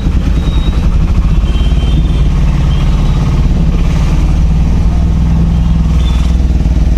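Steady low engine rumble and road noise of a moving vehicle in town traffic.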